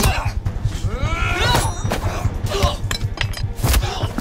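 A physical struggle: repeated knocks, thuds and clinks of bodies and objects, with a strained cry about a second in, over a steady low rumble.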